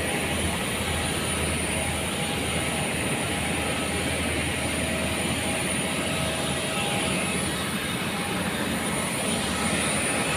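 Airliner jet engines running: a steady roar with a high, even whine.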